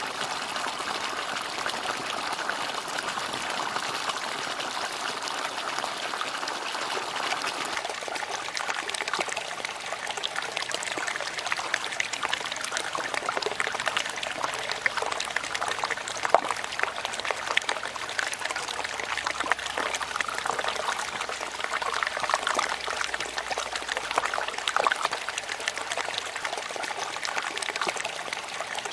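Water from a bamboo fountain spout pouring and trickling steadily into its basin. The splashing turns more spattery about eight seconds in.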